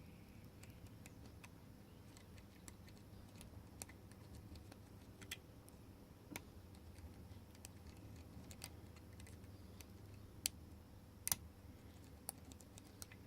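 Light, irregular clicking of a lock pick working the pins of a pin-tumbler padlock held under a tension wrench, with two sharper clicks late on.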